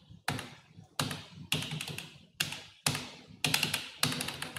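Computer keyboard keys pressed one at a time: slow, separate keystrokes, about two a second, around eight in all.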